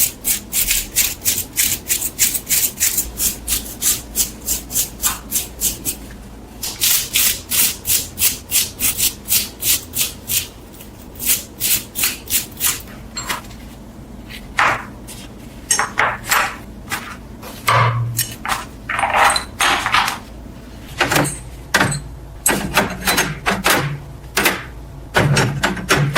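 Back-and-forth abrasive strokes worked by hand, in a steady rhythm of about three strokes a second. They pause briefly around six seconds in, then slow and become irregular in the second half.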